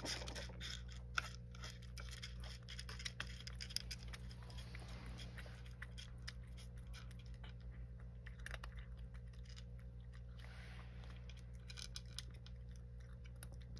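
A grey cat crunching dry kibble: a long run of small, irregular crunches, over a steady low hum.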